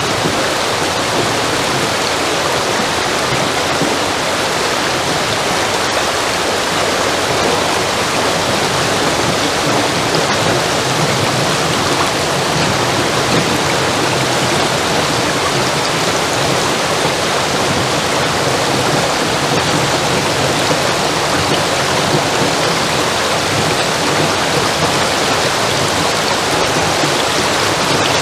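Water of a mill stream rushing steadily through a sluice and down the channel, loud and even.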